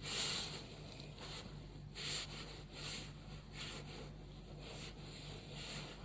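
Close-miked belly: a run of short rustling rubs against the microphone, about one a second, the first the loudest, over a low steady hum.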